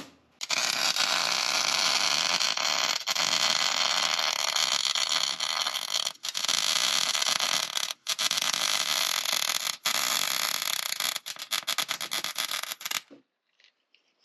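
Electric welder arc running while tacking and welding a steel lower control arm bracket onto a Dana 44 rear axle: a dense, steady hiss in long runs, broken by brief stops every two to three seconds. It turns choppy near the end and stops about a second before the end.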